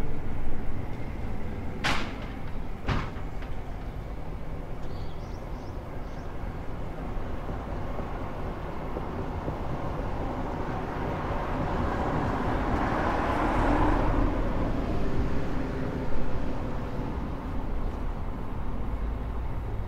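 A vehicle passing by over a steady low rumble; its noise swells to a peak about two-thirds of the way through and then fades. Two sharp clacks about a second apart come near the start.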